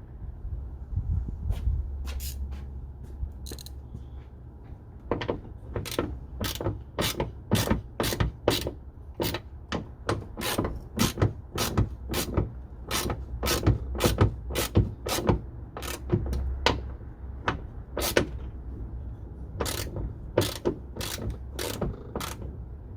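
Hand ratchet wrench clicking in short strokes, about two clicks a second. The clicks start about five seconds in and pause briefly near the end.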